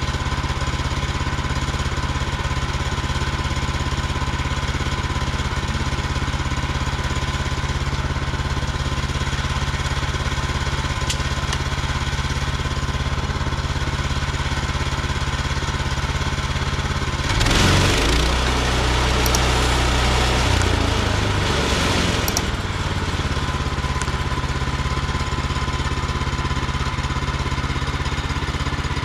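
Woodland Mills HM130MAX portable bandsaw mill running steadily under its small gasoline engine. About 17 seconds in it gets louder and harsher for about five seconds, with a change in the engine's note, then settles back to the steady run.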